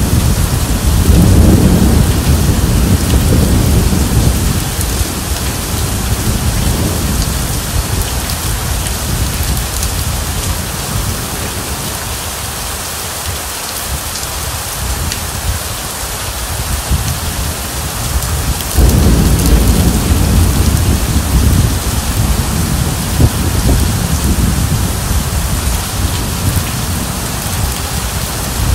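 Rainstorm: steady rain pouring onto a surface with rolling thunder underneath. A deep thunder rumble is strong at the start and dies away through the middle, then a fresh rumble breaks in suddenly about two-thirds of the way through.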